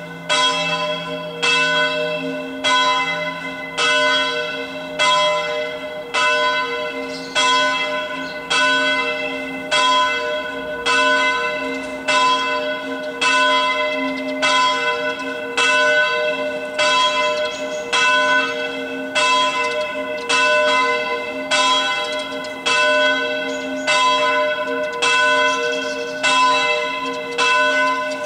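A single swinging church bell from a ring of bronze bells cast by Oberascher and Grassmayr, striking evenly about once a second. A lower bell dies away in the first few seconds. This lone bell closing the evening ringing is what the recordist takes for the Angstläuten or Totenläuten.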